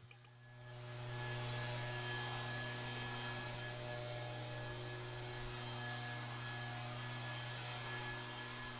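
A steady low hum with several fainter steady tones above it, fading in over the first second and then holding.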